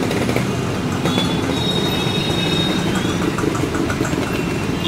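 Steady low rumble of congested road traffic: motorcycles, auto-rickshaws and cars idling and crawling. A thin, high squeal is heard for about a second and a half, starting about a second in.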